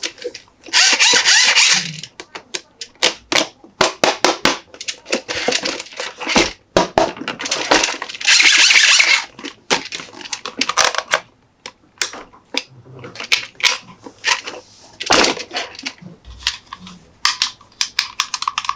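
Hands handling plastic Monster Jam toy trucks and their packaging close to the microphone: a quick run of clicks, taps and knocks, with two spells of crinkling, about a second in and again around eight seconds.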